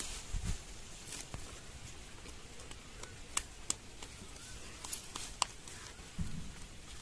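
Quiet hand-milking of a goat into a small metal pot while the goat feeds on fresh green fodder: soft rustling and chewing, with a few sharp clicks in the middle.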